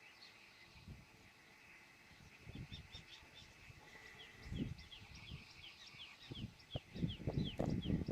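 Weaver birds chirping in a rapid run of short, falling calls, starting a couple of seconds in, over a faint steady high hum. Low rumbling bumps come in and grow louder near the end.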